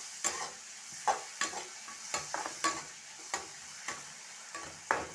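Chopped onions and green chillies sizzling gently in mustard oil in a kadhai over a low flame, softening. A spatula scrapes and taps against the pan every half second to a second as they are stirred.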